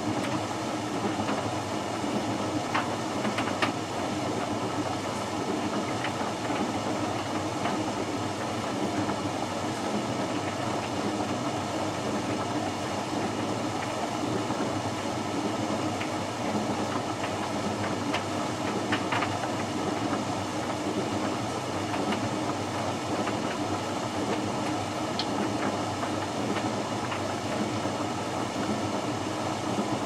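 Hoover VisionHD VHC 681B condenser tumble dryer running on its bone dry sensor cycle: a steady whir of the motor and fan with the drum tumbling laundry, and a few light clicks.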